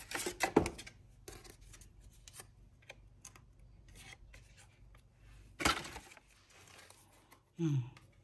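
Lasagne sheets rubbing and scraping as they are laid and pressed into a glass baking dish, with scattered light clicks. There are two louder scrapes, one near the start and one about two-thirds through.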